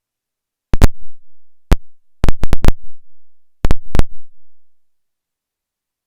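A series of loud, sharp knocks, about ten in four quick clusters over some three seconds, each with a short low rumble trailing off.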